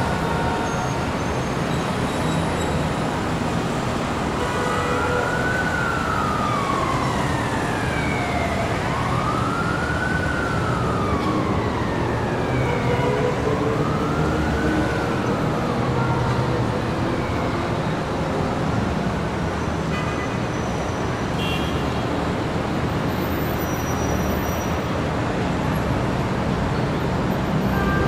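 Steady city street traffic noise, with an emergency vehicle's siren wailing over it in three slow rises and falls, starting about four seconds in and fading about halfway through.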